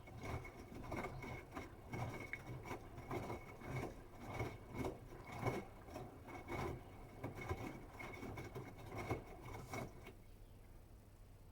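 Bosch Serie 8 WAW32590 front-loading washing machine mid-wash: the drum turns and the laundry tumbles with uneven swishing thuds about twice a second, over a steady motor whine. The drum stops about ten seconds in, as it pauses between turns.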